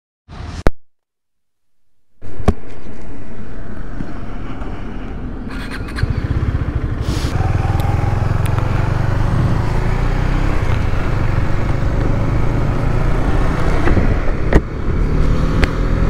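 A short knock, a pause, then a KTM 250 Duke's single-cylinder engine running. The engine gets louder and its revs rise as the bike pulls away and accelerates, with a brief dip in revs near the end at a gear change.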